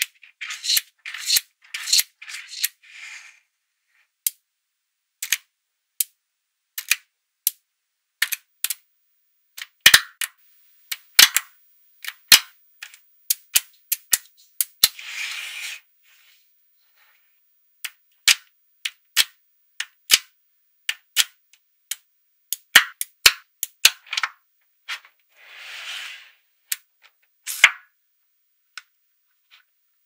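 Small neodymium magnetic balls snapping together with sharp, irregular clicks as rows and layers are joined, loudest around ten to twelve seconds in and again around twenty-three seconds. A few short rattles of balls rolling and rubbing against each other come in between.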